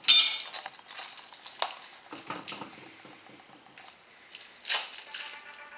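A motorcycle tire being handled over a spoked wheel rim: rubber brushing and rubbing, with scattered light knocks and clicks. There is a loud brief rustle right at the start and another near the end.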